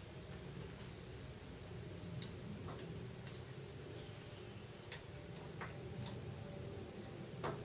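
Faint, irregular clicks and taps, about six or seven, as fingers press ribbon-cable connectors down onto the sockets of a Samsung Galaxy Note 2's logic board, over a steady low hum.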